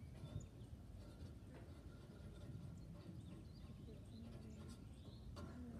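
Quiet outdoor ambience with faint, scattered bird chirps over a low background rumble, and a soft thud about half a second in.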